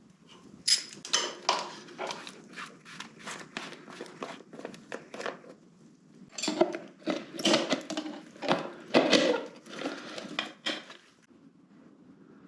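Metal clinks, clicks and knocks of hand tools and parts being handled while stripping the rear brake calipers off a BMW K100 motorcycle, in an irregular run that stops about 11 seconds in.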